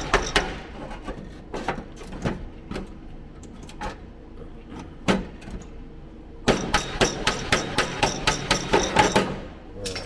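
Hammer tapping on sheet steel in a car floor-pan repair. A few scattered taps and one harder blow come first, then a quick run of about six taps a second that stops near the end.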